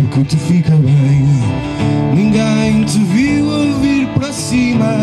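Live folk-style band music: a man singing a melody over a strummed acoustic guitar, with hand percussion on barrel drums.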